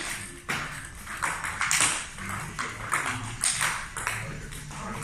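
Table tennis ball struck with a bat and bouncing on the table in quick succession, several sharp clicks a second, along with shoe scuffs and footsteps on the hall floor during a fast footwork drill.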